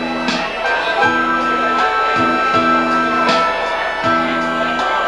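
Keyboard playing an instrumental song intro: low chords struck again and again in a steady rhythm under long held higher notes.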